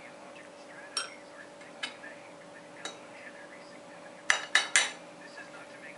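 Metal cutlery clinking against a china plate and a glass serving bowl. There are three light clinks about a second apart, then a quick run of three louder clinks about four seconds in.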